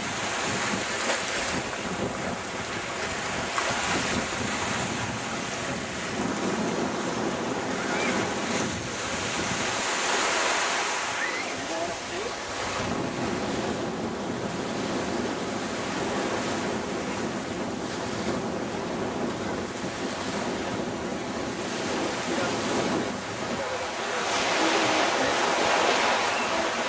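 Small waves breaking and washing up a sandy beach, with wind buffeting the microphone; the wash swells about ten seconds in and again near the end.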